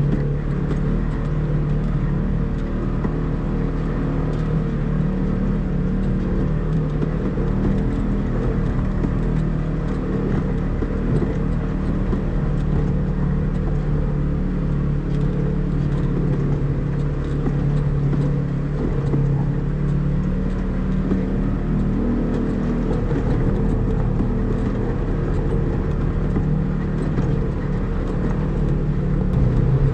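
Polaris RZR side-by-side's engine running under way on a rough rocky trail, its note rising and falling a little as the throttle changes, with faint knocks and rattles from the track.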